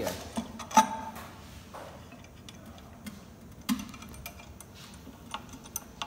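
A few separate clicks and knocks as a graphite pouring spout on a steel mounting plate is set against an induction furnace's crucible and handled with a T-handle hex key; the sharpest knock comes just under a second in.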